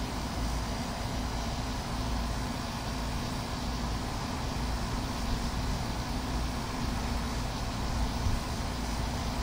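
Steady low rumble of wind on the microphone while the switched-off Hunter seven-blade box fan coasts down, its blades kept turning by the breeze.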